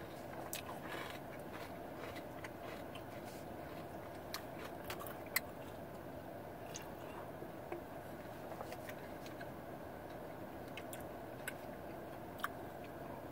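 Faint chewing of a chocolate with a malt-ball centre, with scattered small crunches and clicks, and sips from a plastic water bottle partway through, over a steady low hum.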